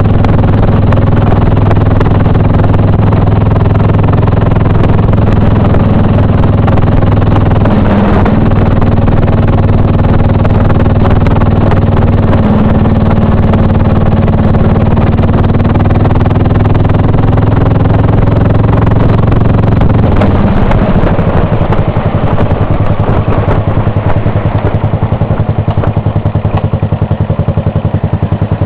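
2002 Buell Blast's single-cylinder 500 cc thumper engine, bored and high-compression, breathing through a large aftermarket exhaust. It runs steadily at cruising speed, then falls off about two-thirds of the way through and settles into an idle with separate, evenly spaced firing pulses.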